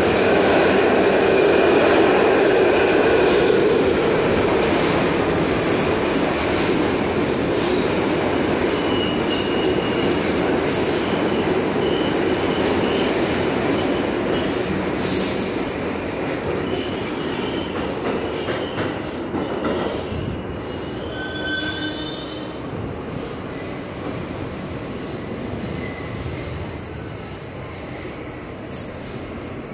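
New York City Subway train rolling along an underground station platform and slowing to a stop, a heavy steady rumble that gradually eases. Short high-pitched wheel squeals come several times in the first two-thirds, and a thin high whine holds in the last few seconds.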